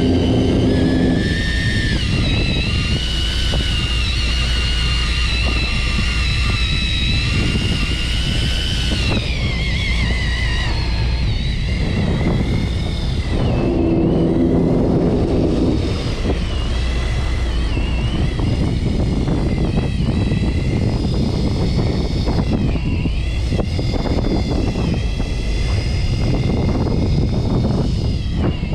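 Fishing boat's engine running steadily, with a high-pitched whine over it that wavers up and down in pitch.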